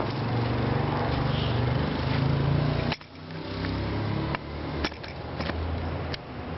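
Street traffic: a motor vehicle's engine running close by, with a low hum that drifts in pitch and drops off suddenly about three seconds in, plus a few sharp clicks.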